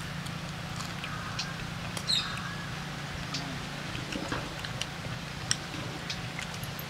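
Outdoor ambience: a steady low hum with scattered short clicks and faint high chirps. A sharper click comes about two seconds in and another about five and a half seconds in.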